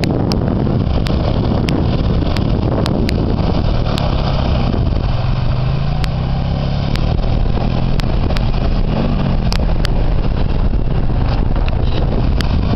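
ATV engine running as the quad drives through mud and water, its pitch rising and falling in the middle, with scattered sharp clicks.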